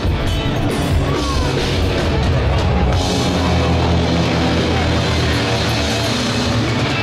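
Rock music with a drum kit playing steadily.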